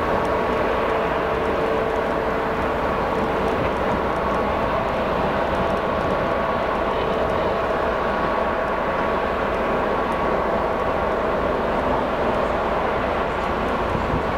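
ČKD ChME3 shunting diesel-electric locomotive with its six-cylinder diesel running as it slowly hauls a string of gondola cars. A steady drone with a held whine on top.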